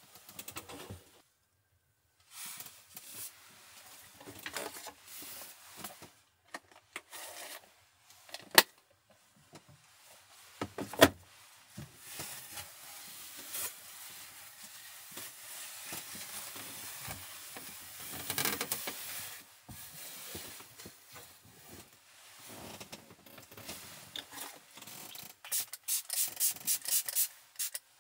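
A cloth wiping a wooden tabletop: rubbing that stops and starts, with two sharp knocks about nine and eleven seconds in. Near the end, a quick run of short rubs as hands rub together.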